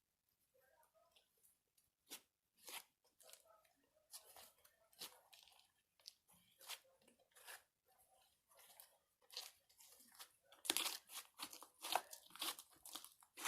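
Fluffy slime being kneaded and squished by hand, giving irregular sticky crackles and pops. They come thicker and louder in the last few seconds.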